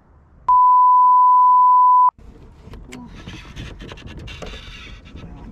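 A censor bleep: one steady, loud, high beep lasting about a second and a half, starting about half a second in, with all other sound cut out beneath it, covering a spoken word. After it, faint rustling and a few light clicks.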